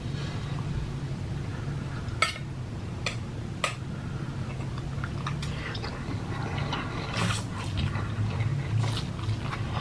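A person eating ramen noodles close to the microphone: chewing and biting, with a few sharp clicks of a utensil against the bowl.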